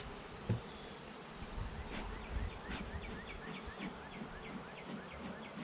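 Honey bees buzzing around an open hive. A single knock comes about half a second in, and from about two seconds on a rapid series of short high chirps, about four or five a second, runs through to near the end.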